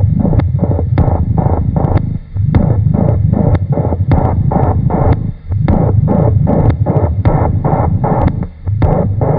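Experimental electronic noise music: a dense, loud low rumble with a steady ticking pulse about two clicks a second, the rumble briefly dropping out about every three seconds.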